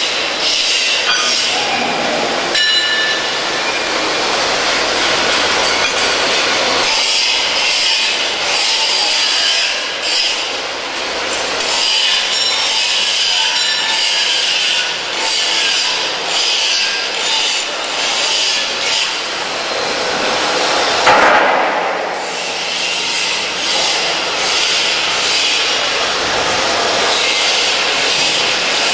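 Metalworking shop noise: a hand grinder cutting steel bar, with clinks and knocks of metal. A short louder burst comes about two-thirds of the way through.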